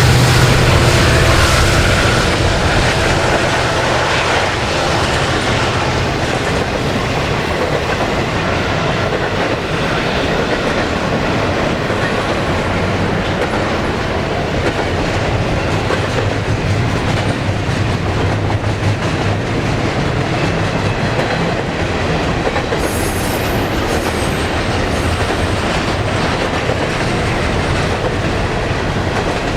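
Train passing close by: the low locomotive engine sound fades within the first few seconds, then the cars roll past with a steady clickety-clack of wheels on rail joints. There is a brief high wheel squeal a little over twenty seconds in.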